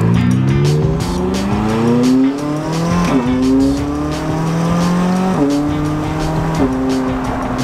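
Turbocharged McLaren engine with new downpipes, titanium exhaust and tune, heard from inside the cabin accelerating through the gears. The engine note climbs steadily, then falls at an upshift about three seconds in, again a little past five seconds and once more near the end, after which it holds steady.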